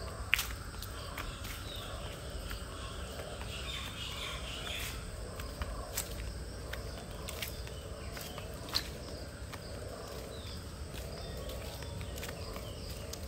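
Outdoor garden ambience: a steady low rumble with a few scattered sharp clicks and ticks, the sharpest just after the start and again about nine seconds in, and a faint higher chirping around four seconds in.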